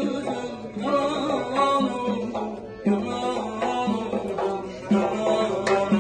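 Live Khorezm folk music: an accordion playing a melody over regular drum strokes.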